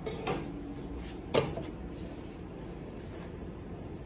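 Two short knocks of handling on a wooden workpiece, the second louder, the first followed by a brief ring, over a low steady shop hum.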